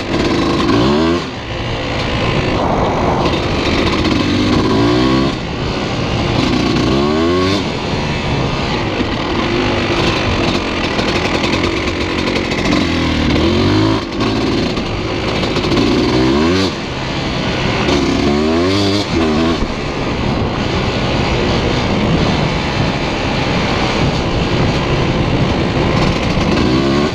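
KTM dirt bike engine running under way, revving up and easing off over and over as the throttle is opened and closed, its pitch rising in repeated sweeps.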